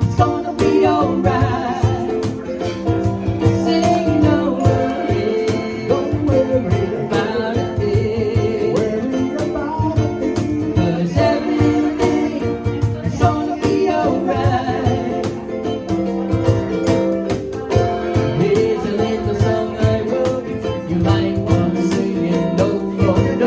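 Live cover band performing: a singer over guitar, with a steady beat.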